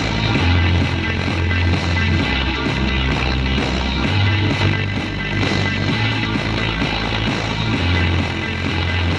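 Music played loud for a DJ sound-system soundcheck, with a heavy bass line whose notes change every second or so under guitar.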